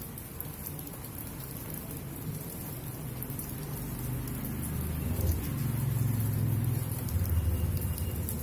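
Steady rain falling, with a low rumble that swells about halfway through and holds to the end.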